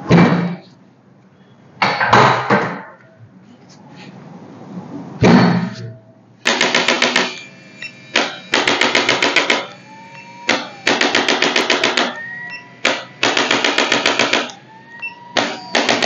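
Handheld electric chiropractic adjusting instrument pressed against the spine, firing bursts of rapid taps, each burst about a second long, five times in the second half. Before it, three single loud thumps a couple of seconds apart as hands thrust down on the back.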